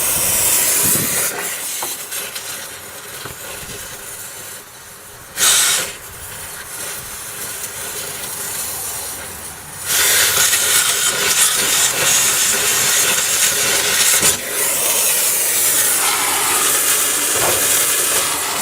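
Cutting torch hissing as it works through bumper bolts, quieter for a while with one short loud blast about five seconds in, then a loud steady hiss from about ten seconds in with a sharp crack near the middle of that stretch.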